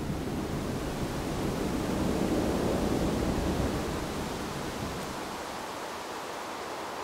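Added wind sound effect: a rush of air that swells a little in the middle, its low rumble dropping away about five seconds in.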